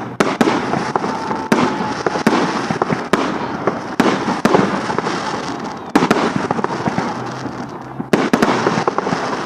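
A fireworks display going off: sharp bangs in quick succession over a dense crackle, in volleys that break off briefly about six and eight seconds in before starting again.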